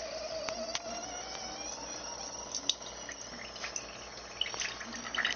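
Single-serve K-cup coffee maker's water pump running with a buzzing hum and a thin whine that rises slowly in pitch, with crackling clicks growing near the end as water starts through. The machine is brewing without heating the water, so the coffee comes out cold.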